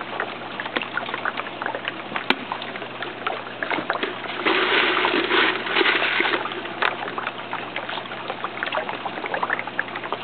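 Tilapia and catfish splashing at the water surface as they snatch floating feed pellets: a run of small splashes, with a louder burst of splashing about four and a half seconds in lasting nearly two seconds.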